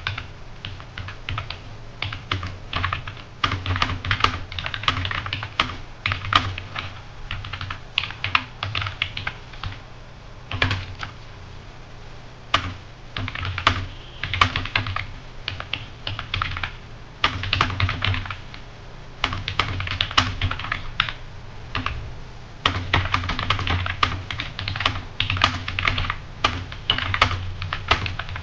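Computer keyboard keys being typed fast in long runs of clicks, with a couple of short pauses, during a timed typing speed test.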